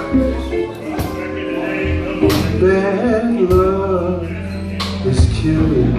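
Live band playing, with a man singing over drums and bass guitar.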